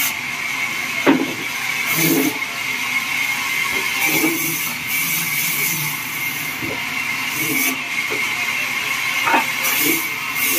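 Sawmill machinery running steadily, a constant hiss with a high whine, while a log is shifted on the mill's steel carriage, with a sharp knock about a second in and another near the end.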